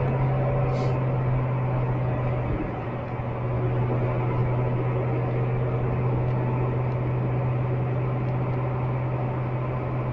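Lamborghini Gallardo LP550-2's V10 engine running at a steady pace as picked up by a dash cam's microphone, a constant low drone that dips slightly about two and a half seconds in.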